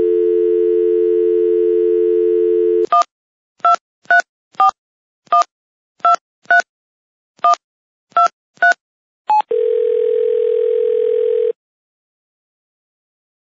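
Telephone dial tone, then ten touch-tone digits pressed one by one over about six seconds, then the ringback tone rings once for about two seconds as the call goes through.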